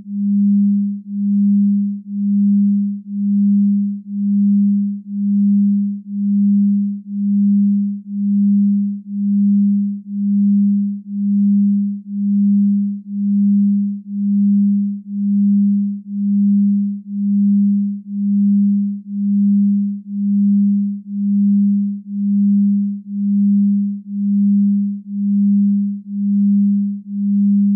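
A low, pure electronic tone, about 200 Hz, pulsing in regular swells about once a second.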